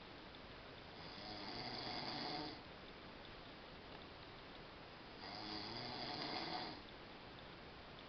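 A sleeping man snoring through a slightly open mouth: two long snores about four seconds apart, with quieter breathing between them.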